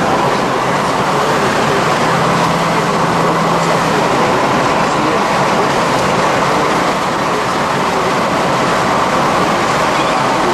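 Steady, loud rushing road noise of a moving vehicle, heard from inside. A faint low hum is held for about two seconds near the start.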